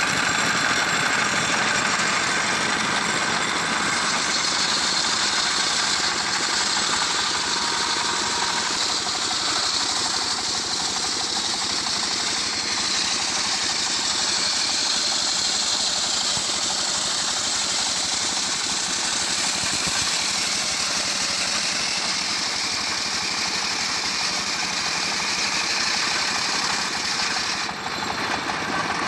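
Engine-driven home-built circular sawmill running steadily, its belt-driven blade spinning; near the start the blade rips along a mango-wood board.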